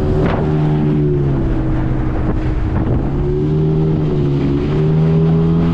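Outboard motor of a small aluminium fishing boat running at speed, a steady engine note that sags slightly in pitch midway and climbs back up, with wind rushing over the microphone.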